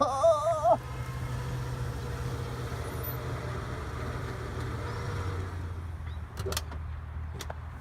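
Bulldozer engine running steadily with a low hum. A wavering, pitched call is heard in the first second, and there are a couple of sharp knocks near the end.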